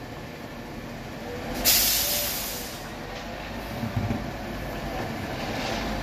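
Concrete mixer truck's air brakes releasing with a sudden, loud hiss of air about two seconds in, lasting about a second, then the truck's diesel engine running louder as it starts to move.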